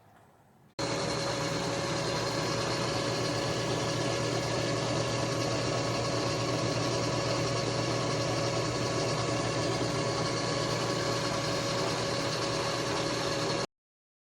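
A machine tool running steadily, a loud even hum with a constant whine, that starts abruptly about a second in and cuts off abruptly near the end.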